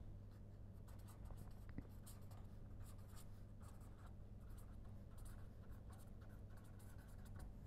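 Faint scratching of a pen writing on paper, in short irregular strokes, over a low steady hum.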